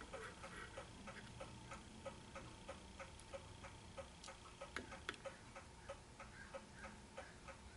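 Faint, steady ticking at about three ticks a second, with a couple of louder sharp clicks about five seconds in.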